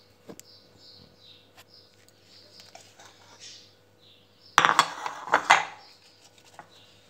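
Ceramic plates clinking and knocking against each other and the stone countertop as they are shifted, with a loud cluster of clatter about four and a half seconds in. Faint high chirping runs in the background.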